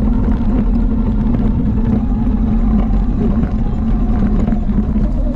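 ATV engine running at a steady, even speed.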